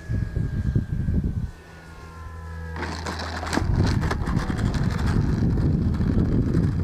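RC model Yak 54 landing. At first its motor and propeller run at low throttle, a steady hum with a faint whine slowly falling in pitch. About three seconds in, the wheels touch down on the asphalt runway with a sudden clatter and a few sharp knocks. The carbon fiber landing gear then rattles and rumbles as the plane rolls out.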